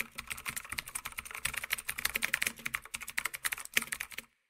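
Rapid computer-keyboard typing, a dense, irregular run of key clicks that stops abruptly near the end.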